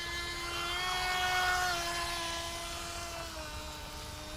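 Electric motor of a VolantexRC Vector 28 RC speedboat whining steadily as the boat runs on the water. It grows louder about a second in, then drops a little in pitch and fades somewhat, with another small drop in pitch past three seconds.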